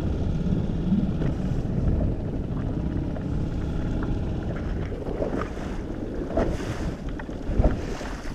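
Small inflatable boat under way on its outboard motor, with wind on the microphone and water rushing along the hull. A few knocks sound in the last few seconds.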